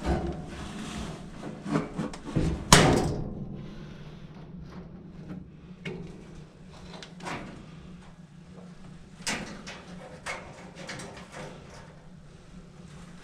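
Scattered knocks and clatter from a clothes dryer's parts being handled during disassembly, the loudest knock about three seconds in, then lighter ones every second or two.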